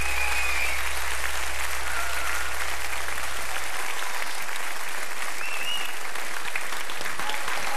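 Studio audience applauding steadily after a song, with a low steady hum underneath that stops about four seconds in.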